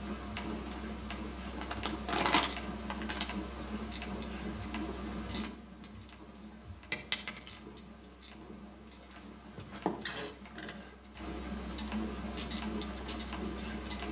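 Scattered small knocks and clatters of objects being handled, like dishes or utensils, over a steady low hum. There is one louder knock about two seconds in. The hum drops away for a quieter stretch in the middle, then returns.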